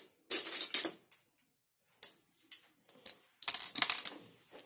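Loose plastic Lego bricks clattering and clicking in short bursts, with a few single clicks and a longer, louder rattle near the end, as of someone rummaging through a pile of pieces.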